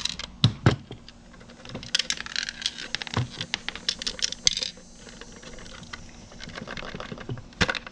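Scattered light clicks, taps and rattles of small metal parts, screws and a screwdriver being handled during disassembly. A busier run of small clattering clicks comes from about two to four and a half seconds in.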